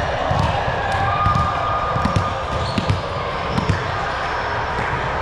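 Repeated thuds of a ball being played and bouncing, roughly one a second, over faint distant chatter.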